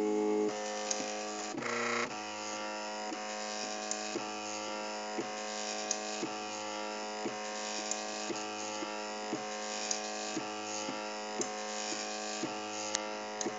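MakerBot Cupcake CNC 3D printer's stepper motors whining steadily while it prints a raft, with a short tick about twice a second and a brief change in pitch about two seconds in.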